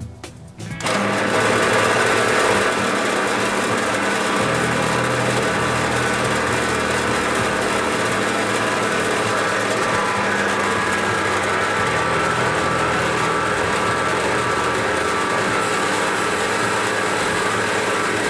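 Metal-cutting band saw switched on about a second in, then running steadily as its blade cuts through four stacked bars of O1 tool steel.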